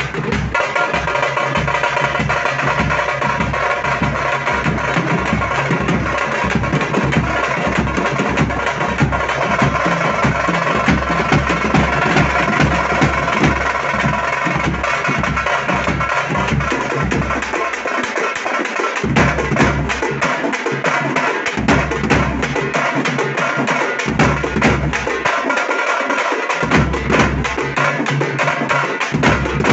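Tamate frame drums played fast and dense in a group, over deep, booming bass drum beats. The bass drops out briefly a few times in the second half while the rapid drumming carries on.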